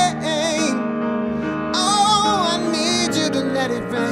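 A man's soulful sung ad-libs, wordless runs and notes with vibrato in short phrases, over sustained grand piano chords.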